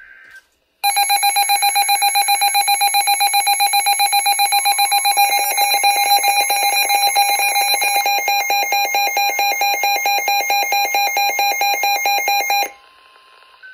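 Two NOAA weather radios, a Midland desktop receiver and a handheld Public Alert receiver, sounding their warning alarms for a severe thunderstorm warning: a loud, rapid electronic beeping starts about a second in, a second beeping pattern joins about five seconds in, and both cut off together about a second before the end.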